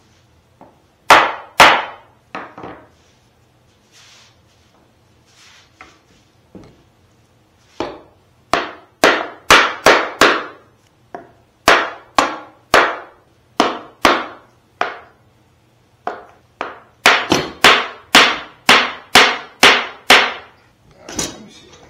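Hammer knocking on a glued-up wooden assembly held in pipe clamps: about two dozen sharp knocks, a few near the start, then a steady run of knocks from about eight seconds in and a quicker run after about seventeen seconds.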